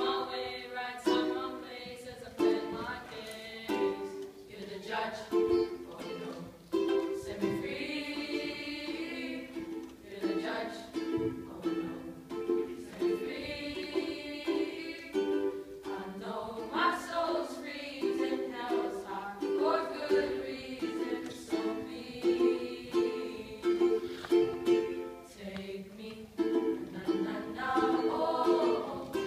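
A ukulele strummed in a steady rhythm, accompanying a small group of boys singing together.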